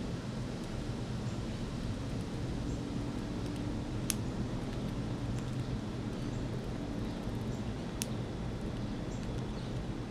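A steady low background rumble with faint scattered ticks, and two sharp clicks about four seconds apart.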